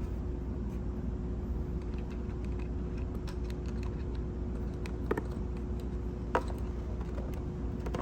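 Light plastic clicks and taps as a small LED turn signal is handled and pushed through a slot in a plastic motorcycle fairing. There are two sharper clicks, about five and six seconds in, over a steady low hum.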